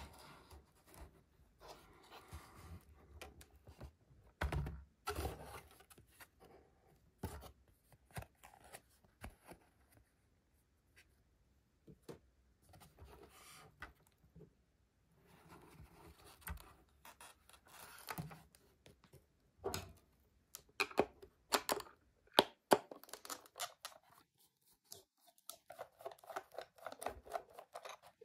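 Handling of a cardboard display box for a diecast model car: faint rustling and scraping with scattered clicks. The clicks turn more frequent and sharper in the last third.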